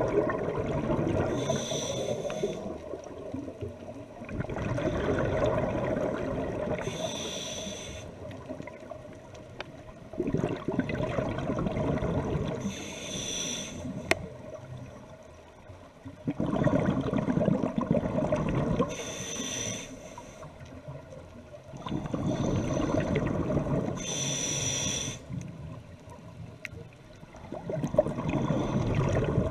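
A scuba diver breathing through a regulator underwater. Each breath cycle brings a noisy stretch of bubbling and air rush and a shorter hiss with a faint whistle, repeating evenly about every six seconds, five times over.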